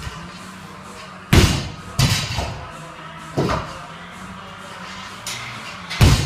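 Loaded barbell with rubber bumper plates dropped onto the gym floor, landing with a loud thud about a second in and bouncing down in weaker knocks; a second drop lands near the end. Music plays underneath.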